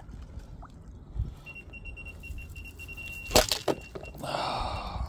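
Rapid electronic beeping at one pitch from a carp bite alarm for about two and a half seconds, with a sharp knock near the middle, then a burst of splashing as a hooked carp thrashes in the shallow margin.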